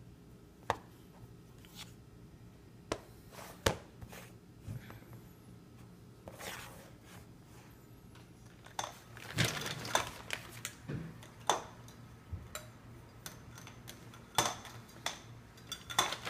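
Scattered light clicks and clatter of hard plastic: a snap-together polystyrene test tube rack and clear plastic test tubes being handled and set into place, with some rustling of a plastic bag. The clicks come in irregular clusters, busiest in the second half.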